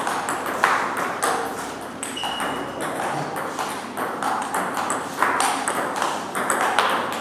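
Table tennis rally: the ball clicking sharply off the bats and the table in quick, irregular succession, one bat faced with Sauer & Tröger Schmerz OX long-pimple rubber. A brief high squeak sounds about two seconds in.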